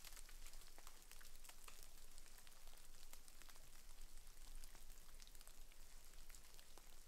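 Bits of snow and ice dropping from snow-laden branches: a light, irregular pattering of many small ticks over a faint hiss.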